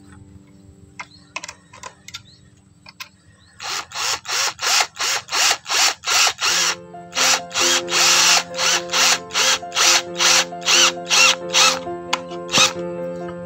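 Cordless drill/driver driving a screw into a wood block and plywood, running in a rapid string of short pulses about three a second for roughly nine seconds, after a few light clicks. Background music plays under it from about halfway.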